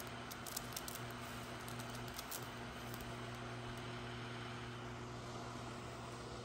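High-frequency solid-state Tesla candle running: a steady low hum with hiss from its plasma flame and cooling fan. A few faint crackles come in the first two seconds or so while steel melts in the flame.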